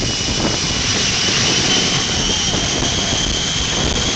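Jet engines of a jet-powered drag truck running, a loud steady rush of noise with a high turbine whine above it that climbs slightly partway through.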